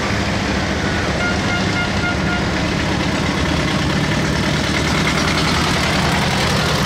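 Vintage tractor engine running steadily as a small red tractor drives up and passes close by, growing louder near the end.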